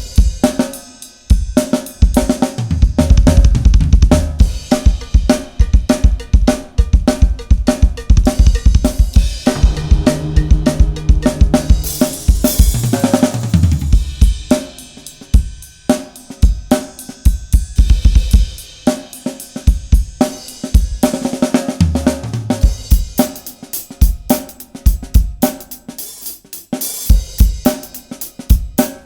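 A Pacific Drums (PDP) 805-series drum kit with a Mapex snare and Sabian cymbals, played in a steady groove of bass drum, snare and hi-hat with cymbal crashes. The groove is broken by tom fills that step downward in pitch, about halfway through and again about three-quarters of the way through.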